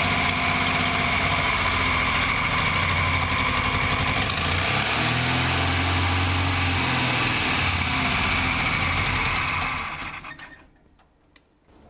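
Carburetted car engine idling with its idle screw turned down, the revs sagging about halfway through and then the engine dying near the end as it stalls.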